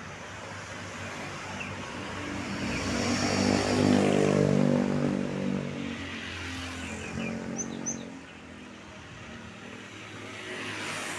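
A bus driving past: its engine grows louder, is loudest about four seconds in, then fades with its pitch falling slightly as it goes by.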